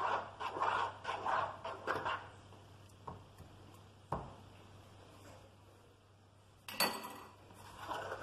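Metal spoon stirring and scraping through flour and water in a plastic bowl in quick repeated strokes for about two seconds. After that come a few light knocks, a louder clatter about seven seconds in, and more scraping near the end.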